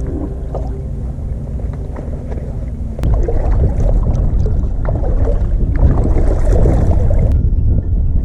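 Small 2-horsepower outboard motor running on a kayak, mixed with wind and water noise. The sound jumps suddenly louder about three seconds in.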